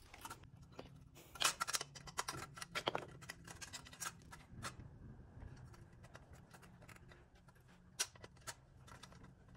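Light metallic clicks, taps and scrapes of a screwdriver and small screws against a headlight's metal retaining frame as it is handled. They come in uneven clusters, loudest about one and a half seconds in.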